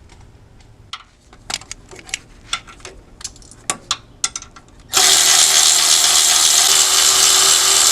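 Metal clicks and taps as a socket goes onto a 14 mm bolt. About five seconds in, a cordless power tool starts running steadily at high speed, spinning the bolt out to free a plate blocking the engine's oil pan.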